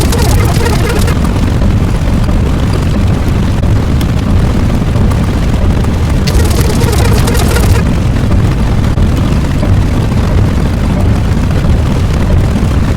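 Loud, steady rumble, with bursts of hiss about a second long near the start and again about halfway through.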